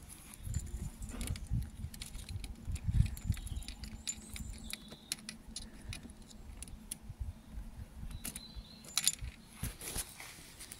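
Uneven low wind rumble on the microphone, with scattered light clicks and small metallic jingles from handling and moving around, a few louder clicks about three seconds in and near the end.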